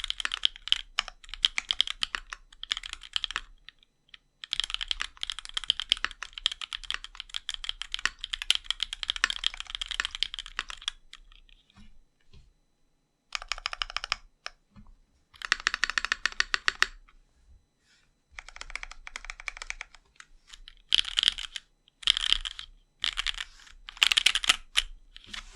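Typing on a custom mechanical keyboard with a brass plate, RamaWorks Duck switches and GMK keycaps: fast runs of keystroke clacks, one long run at first, then shorter bursts with brief pauses between them.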